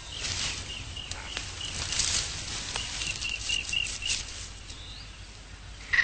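Tropical forest ambience: a bird gives a run of short, high chirps several times a second, stopping about four seconds in, over a steady hiss with scattered rustles.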